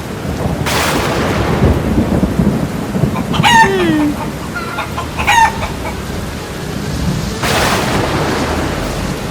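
Steady rain-like hiss with two louder rushing swells, about a second in and near the end, and a bird calling twice in the middle.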